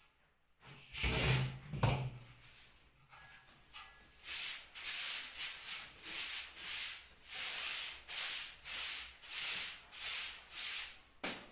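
Rhythmic dry brushing strokes of a cleaning brush or broom being worked across a surface, about one and a half to two strokes a second, starting about four seconds in. Before that there are a couple of knocks and a short clatter.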